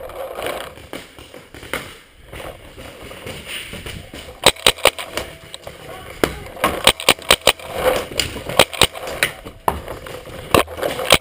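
Paintball markers firing: sharp pops in quick bursts of several shots a second, starting about four and a half seconds in and going on in clusters.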